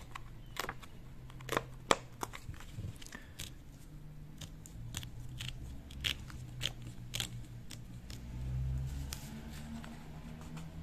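Perforated paper edge strips of a sealed PIN mailer being torn off slowly by hand, giving an irregular string of small sharp paper snaps and rips as the perforations part.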